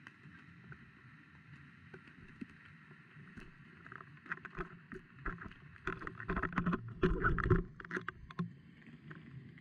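Water sloshing with a run of knocks and clatter, like gear bumping against a small boat's hull. The knocks grow busier from about four seconds in and are loudest around seven seconds.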